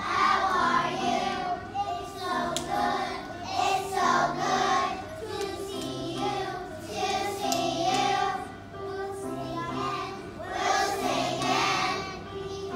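A kindergarten children's choir singing together over an instrumental accompaniment with steady bass notes.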